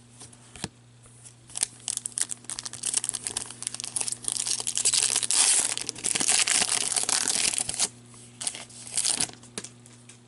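Foil wrapper of an Upper Deck Series 2 hockey card pack being torn open and crinkled in the hands. Scattered crackles build into a few seconds of dense tearing and crinkling past the middle, then a couple of short crinkles near the end.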